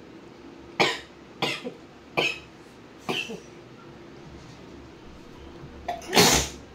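Woman with a heavy cold coughing: four short, sharp coughs under a second apart, then after a pause one longer, louder burst near the end.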